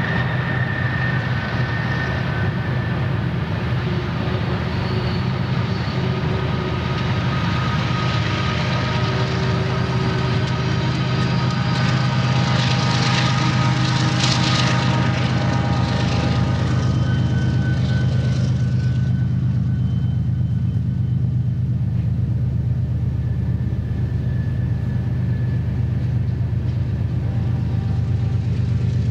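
BNSF diesel-electric locomotives hauling an empty coal train up a grade, their engines giving a steady low drone. In the first part thin squeals come from the wheels on the curve. The sound swells to a louder rush as the locomotives pass about 13 to 15 seconds in, and the higher sounds fall away a few seconds later.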